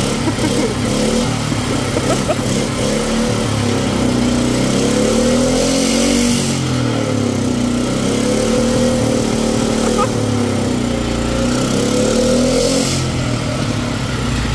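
Small Honda generator engine running, its speed rising and falling a few times as it is revved. It is burning off oil poured into its carburetor after sitting for a year.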